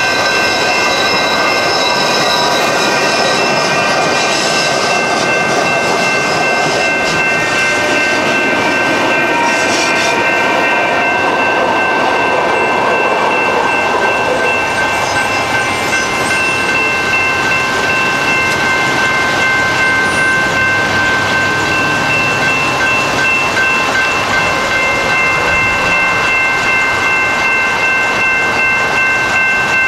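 General Signal Type 2 electronic railroad crossing bell ringing steadily as a train passes, its wheels clattering over the rails.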